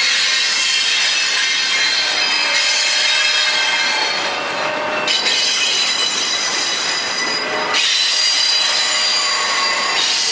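Norfolk Southern freight train's steel wheels squealing on the rails in several high, steady tones over the rolling noise of the railcars. The sound shifts abruptly about five seconds in and again near eight seconds.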